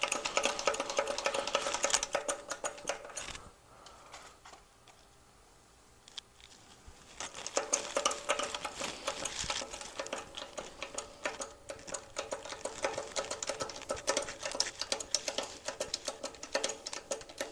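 Rapid, dense mechanical clicking and rattling from work at a shop press. It breaks off about three seconds in, goes quiet for a few seconds, then starts again and runs on.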